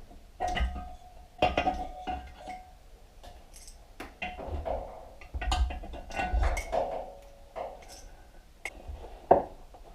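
Metal engine parts from a Honda Magna V4 motorcycle engine being handled and set down during a teardown: a series of irregular clanks and clinks, some leaving a short metallic ring.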